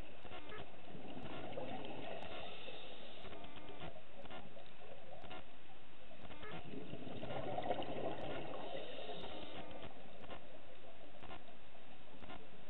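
Underwater sound through a camera housing: a steady rush of water with two swells of bubbling, typical of a scuba diver's exhaled breath, and scattered sharp clicks throughout.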